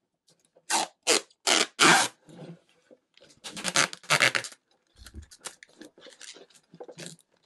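Clear protective plastic film being peeled off the front panel of a digital wall clock: a crackling, tearing rustle in a series of short pulls. The pulls are loudest in the first two seconds and again around four seconds in, then trail off into fainter crinkling.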